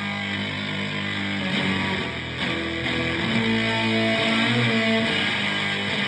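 Electric guitar playing long held notes and chords in a slow, drone-style improvised riff, with a dense distorted buzz over the notes.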